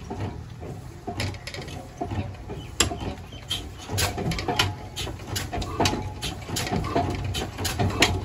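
Old 35 HP Hornsby diesel engine running with its large flywheel spinning: a low, uneven pulsing with many irregular sharp knocks and clanks.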